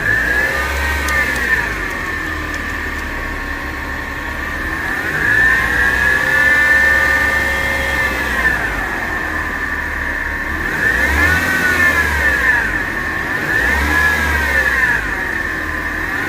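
Volkswagen Touareg engine revved up and down about four times, with a high-pitched whine that rises and falls in pitch with engine speed over the low engine note. The whine is the kind of noise the owner traced to a failing A/C compressor.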